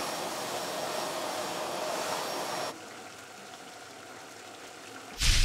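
A canister vacuum cleaner running with a steady whine cuts off abruptly and gives way to the quieter steady hiss of water boiling in a pot. Near the end, a sudden much louder noise with a heavy low rumble starts.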